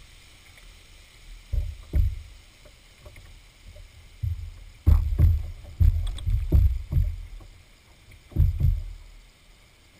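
Canoe being paddled: a series of dull, deep thumps and knocks in short clusters, carried through the hull to a camera taped on the bow, over a faint hiss of moving water.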